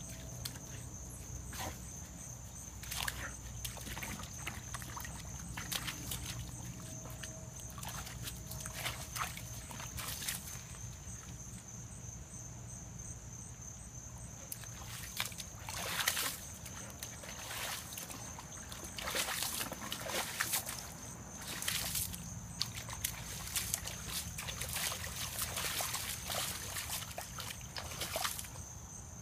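A young Doberman pawing and digging in a shallow mud puddle: irregular wet splashes and sloshes of mud and water, coming more often in the second half.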